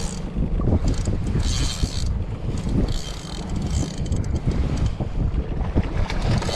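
Wind buffeting the microphone, with a fishing reel whirring in several short bursts as a hooked bluefish is reeled in toward the boat.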